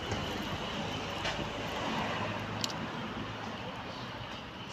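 Steady outdoor background rumble with a faint high hum, and a single sharp click about two and a half seconds in.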